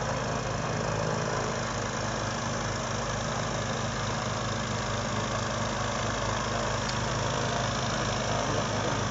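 Diesel engine of a home-built pusher-propeller boat running steadily under way, with even low engine pulses beneath a wide rush of propeller and water noise.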